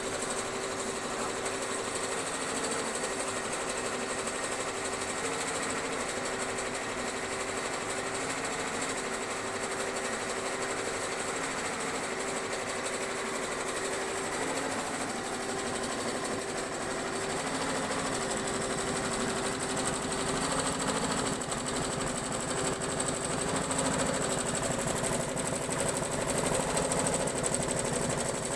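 HSW single-head 12-needle computerized embroidery machine stitching: a steady, rapid mechanical chatter of the needle head with a constant motor tone, growing a little louder in the second half.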